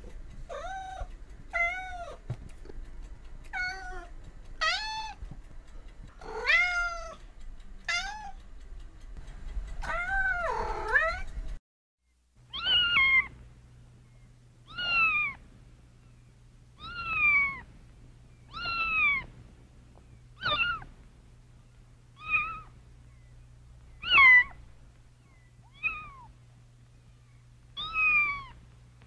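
Domestic cat meowing over and over, one meow every second or two. About twelve seconds in the sound cuts out briefly, and a second run of meows follows over a steady low hum.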